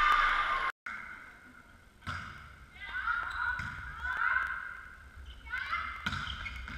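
Indoor volleyball match: loud shouting and cheering cuts off abruptly just under a second in. Then come players' calls and shouts, with a couple of sharp ball hits, one about two seconds in and one about six seconds in.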